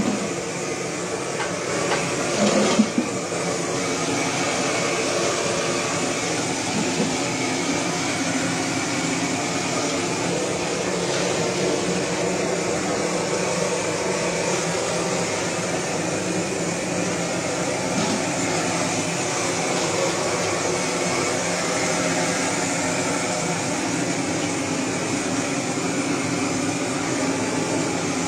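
Gas blowtorch burning with a constant rushing noise, used to singe a carcass. A couple of brief louder sounds come about two to three seconds in.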